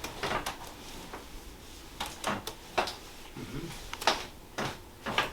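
Scattered short clicks and knocks, about six in a few seconds, from the patient and chiropractic treatment table as the hip is moved through a stretch.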